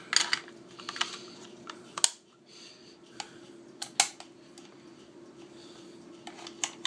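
Sharp metallic clicks and knocks of a magazine being fitted into a Browning BAR .30-06 semi-automatic hunting rifle, a handful of separate clicks with the loudest about two and four seconds in and a quick cluster near the end.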